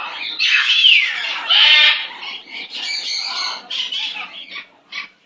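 Pet parrot squawking repeatedly in loud, harsh calls, one of them falling in pitch about a second in.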